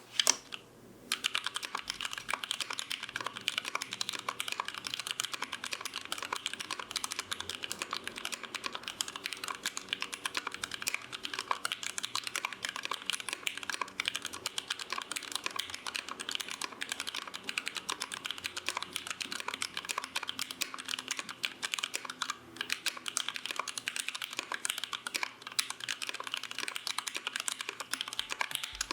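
Boardsource Mark 65 mechanical keyboard being typed on quickly and continuously, a dense run of key clacks starting about a second in after a single opening strike.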